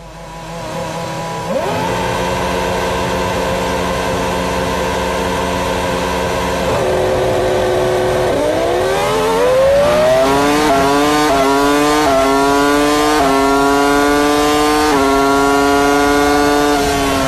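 Formula One car's BMW 3.0-litre V10 engine held at high revs on the grid, then launched off the line and taken up through the gears: about five quick upshifts, each a rising scream cut by a sudden drop in pitch.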